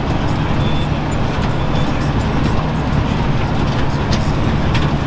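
Tractor engine running steadily, a low even drone, while pulling a Horsch Pronto 4 DC seed drill through the field.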